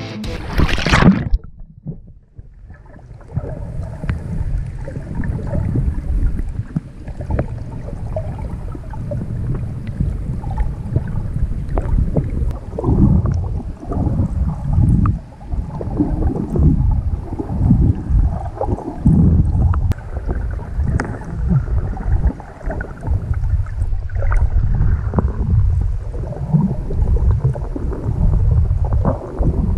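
Muffled water sloshing and bubbling picked up by a camera held underwater while snorkeling, with irregular low surges every second or two. Rock music cuts off about a second in.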